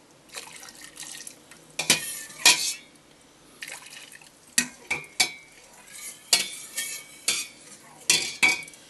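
Metal ladle stirring liquid in a stainless steel pot, scraping and clinking against the sides and bottom in irregular strokes.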